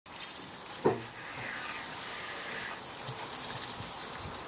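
Water spraying against wet brickwork in a steady hiss, with one sharp knock about a second in.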